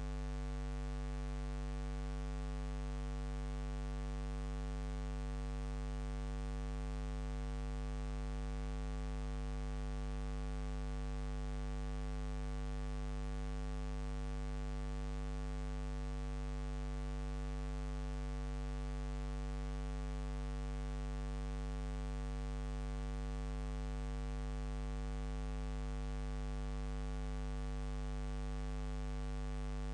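Steady electrical mains hum with a stack of overtones over a faint hiss, unchanging throughout.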